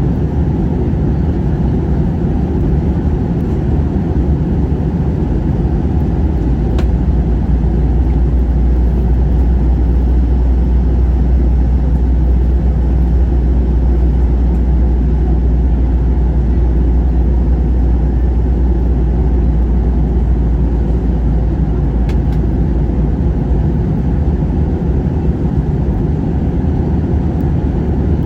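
Steady low cabin roar of an airliner in flight: engine and airflow noise heard from inside the passenger cabin, with two faint clicks.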